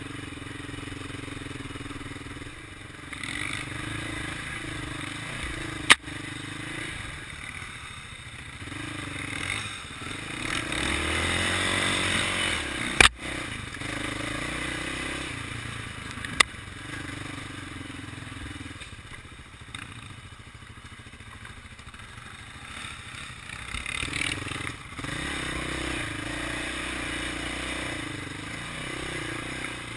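Single-cylinder four-stroke sport ATV engine running under a mounted action camera, its revs rising and falling as the throttle is worked over a rough dirt trail, loudest about ten to thirteen seconds in. Three sharp knocks cut through, at about six, thirteen and sixteen seconds in.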